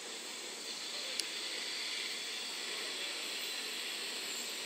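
N700 series Shinkansen train in the station giving off a steady hiss, with a single sharp click about a second in.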